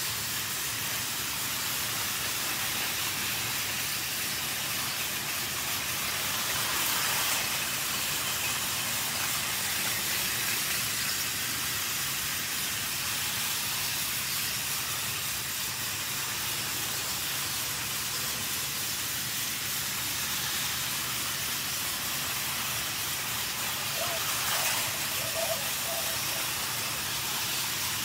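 Battery-powered Thomas toy train's small motor running steadily, a continuous whirring hiss as it pulls its coaches along plastic track.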